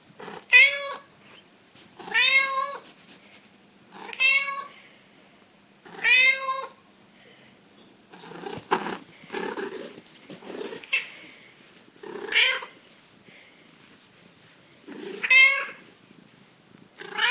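Domestic cat meowing repeatedly, about one loud meow every two seconds, each rising then falling in pitch, with a few softer, rougher sounds about halfway through.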